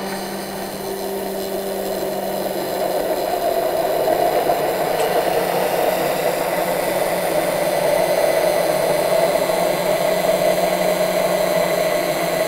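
Hand-held immersion blender running steadily in a tall jar, whipping egg white, garlic and corn oil into toumia garlic sauce as the emulsion thickens. The motor gets a little louder a few seconds in.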